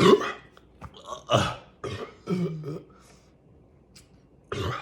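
A man burping loudly several times, the biggest burp right at the start and more following at intervals. He is releasing the carbonation gas held in after drinking a whole bottle of Sprite.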